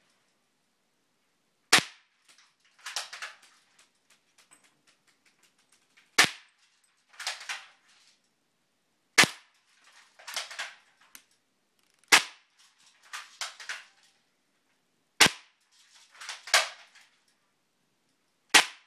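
Spring-powered airsoft AK-47 replica firing six single shots, one about every three seconds, each a sharp crack. Each shot is followed by a short rattle of the bolt being cocked back to set the spring for the next shot.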